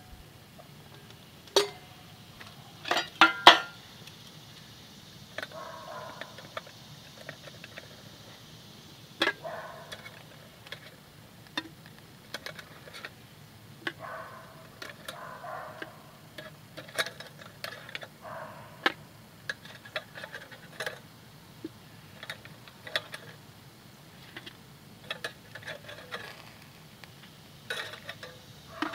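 Metal clanking and clicking: a stainless steel bowl lid lifted off a small backpacking smoker, with a few loud clanks in the first few seconds, then light clicks of metal tongs on the wire grill grate and a metal plate as the smoked chicken wings are lifted off one by one.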